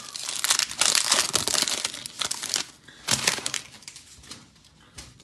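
Foil wrapper of an Optic basketball card pack crinkling and tearing as it is pulled open by hand. The crinkling is dense for the first two and a half seconds, with another short burst about three seconds in, then it dies down to faint handling as the cards come out.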